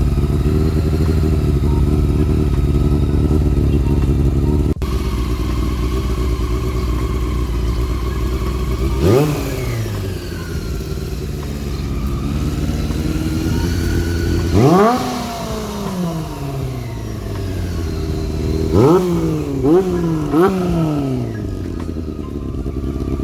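Honda CB400 motorcycle engine idling steadily, then blipped on the throttle: one rev about nine seconds in, another around fifteen seconds, and three quick blips in a row near the end, each rising and dropping back to idle.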